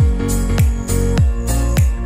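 Background music with a steady kick-drum beat, about three beats in two seconds, over sustained chords.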